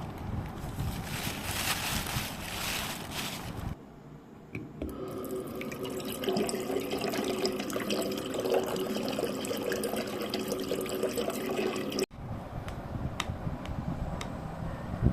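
Running water in several short takes, with abrupt cuts about four seconds in and again near the end.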